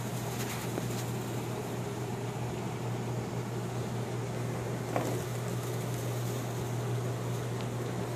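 Steady low mechanical hum over a soft hiss, with a small click about five seconds in.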